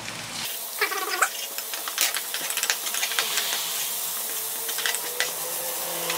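Sliced red onions sizzling in a nonstick frying pan while a wooden spatula stirs them, clicking and scraping against the pan in quick irregular taps. Honey has just gone in to caramelise the onions.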